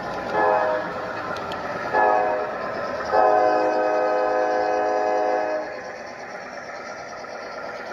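Horn of a sound-equipped model diesel locomotive: two short blasts, then one long blast of about two and a half seconds, over the steady running noise of the train on the track.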